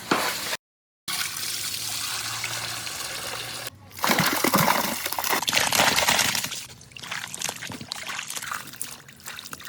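Running water trickling and pouring, as from a tap, in a few edited stretches. It cuts to silence for about half a second near the start, and the water is louder and splashier in the middle.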